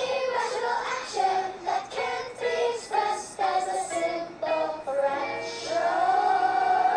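A song with a sung melody in short, separate notes, moving into a long held note near the end.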